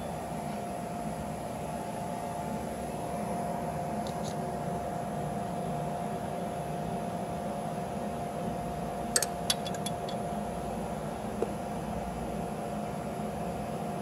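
Steady workshop background hum with a constant mid-pitched tone. A few brief light clicks come about nine to ten seconds in, and one more a little later.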